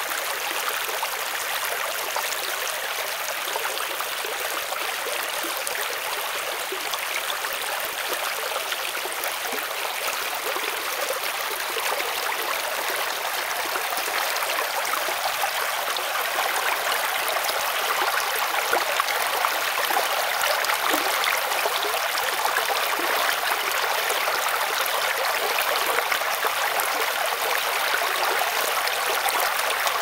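Shallow brook babbling over rocks: a steady rush and splash of running water close to the microphone, getting a little louder about halfway through.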